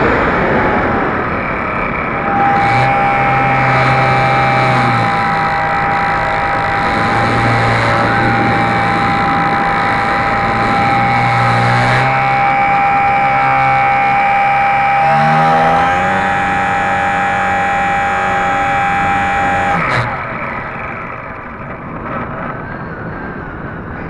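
Electric motor and propeller of a HobbyZone Super Cub RC airplane whining steadily in flight, heard close up with air rushing past. The whine shifts in pitch around 15 seconds in, and the throttle is cut back about 20 seconds in, leaving the sound lower and quieter.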